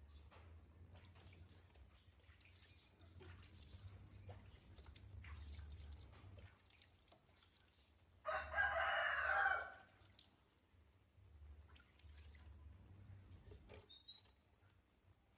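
A rooster crows once, about eight seconds in, the loudest sound here, over faint scattered clicks and a low hum.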